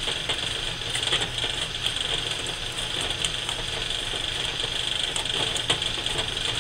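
Silicone spatula stirring thick barbecue sauce in a glass bowl, with small irregular clicks and scrapes against the glass, over a steady background hum and hiss.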